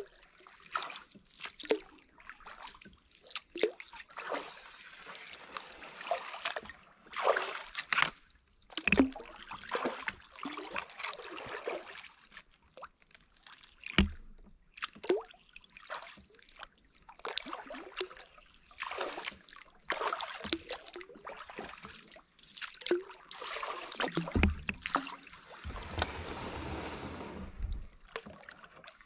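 Kayak paddle strokes: the blades dip and water sloshes and trickles off them in a burst every second or two, with a sharp knock about halfway through.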